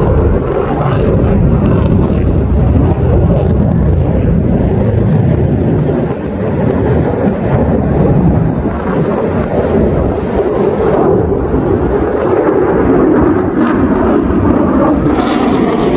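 Lockheed Martin F-35 Lightning II jet fighter flying overhead, its single Pratt & Whitney F135 afterburning turbofan making a loud, steady, low jet rumble that dips briefly about six seconds in.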